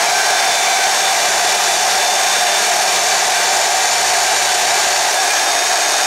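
A portable band saw rigged as a mini vertical metal-cutting band saw, running steadily while its blade cuts through a 3/8-inch aluminum bar. It runs a coarse blade meant for steel, not a skip-tooth blade, and runs too slow for aluminum.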